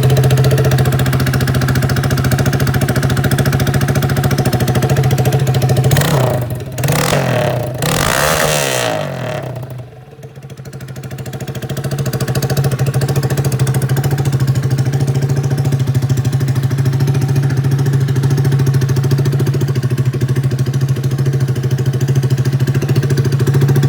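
Honda Titan motorcycle's single-cylinder four-stroke engine running loud through a bare exhaust pipe with no muffler, idling steadily. About six seconds in it is revved a couple of times, drops quieter around ten seconds, then builds back to a steady idle.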